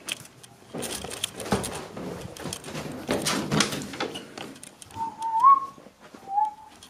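Rustling and rubbing as the camera is handled against clothing, then two short whistled notes near the end: the first wavers and rises, the second is shorter and lower.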